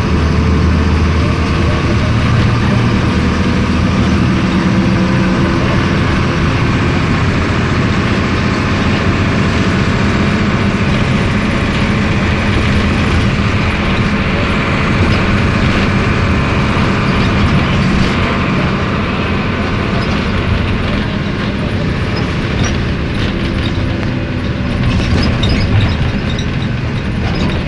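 Mercedes-Benz OF-1721 city bus's OM 366 LA turbocharged inline-six diesel engine running while the bus is under way, its note rising and falling as it pulls.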